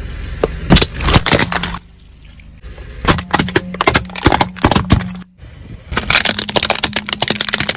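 Objects being crushed under a car's tyre: dense crackling and snapping in three bursts, each a second or two long, with a low steady hum beneath the later two.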